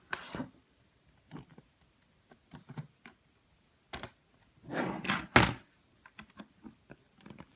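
Scattered handling clicks and knocks, the sharpest about four and five and a half seconds in, from a tablet and the filming device being handled while a button is pressed.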